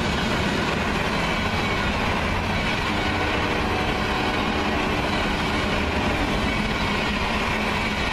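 Loaded freight flatcars of a CSX train rolling past at about 50 mph: a steady rumble of steel wheels on rail, with a faint thin wheel tone between about three and six seconds in.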